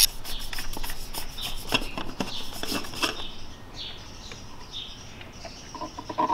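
Ratchet wrench with a 32 mm socket clicking rapidly as it spins the oil filter housing cap loose on a VW Beetle's 2.0L engine. About three seconds in the clicking stops and it goes much quieter while the loosened cap is turned by hand, with a few faint high chirps.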